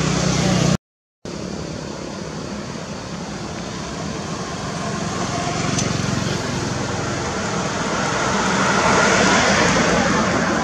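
Steady background noise like road traffic, swelling louder around nine seconds in. The sound cuts out completely for about half a second near the start.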